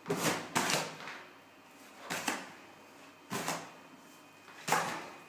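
About five short, sharp noises, roughly a second apart, from applying and working silicone sealant with a caulking gun around the bath mixer's pipe stubs on the tiled wall.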